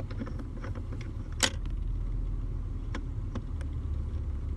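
Small clicks and one sharper tap about a second and a half in, from an aluminum shift knob being handled and tightened on the gear lever, over a low steady hum.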